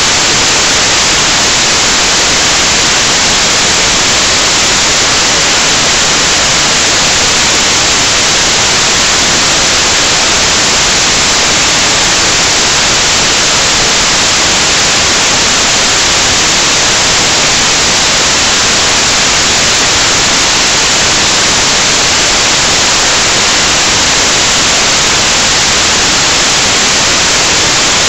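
Loud, steady static hiss, an even wash of noise with no other sound in it: the audio track has dropped out into noise, a recording fault of the screen capture.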